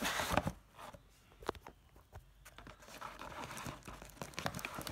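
Cardboard phone box being opened and handled, with rustling and scraping of cardboard and the crinkle of a plastic bag around the phone. There is a loud rustle at the start, a few sharp clicks a moment later, and a longer stretch of rustling near the end.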